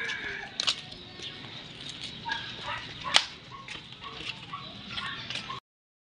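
Flip-flops slapping on a concrete path at a walking pace, a sharp slap every half second or so, the loudest about three seconds in. The sound cuts off suddenly near the end.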